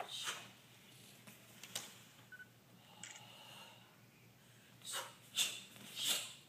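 Short, sharp hissing bursts from two Soo Bahk Do practitioners as they strike through a form: one at the start, one just under two seconds in, and three close together near the end.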